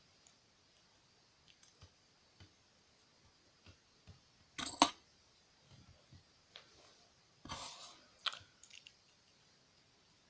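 Faint scattered clicks and taps of small tools and tiny watch parts on a work surface as a wristwatch movement is taken apart, with two louder handling noises: a sharp clatter a little before halfway and a brief rustling clatter about three-quarters through.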